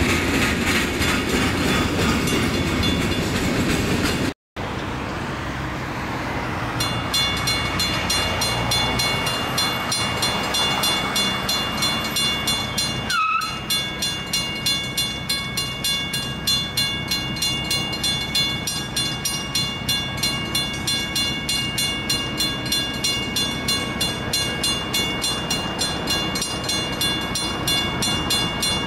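Freight cars rolling past with steady wheel and rail noise for the first few seconds. After a sudden break, a railroad grade-crossing bell rings steadily, about two strikes a second.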